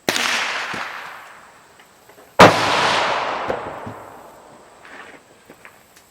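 Two close rifle shots about two and a half seconds apart, each followed by a long echo that dies away over about two seconds; the second shot is louder.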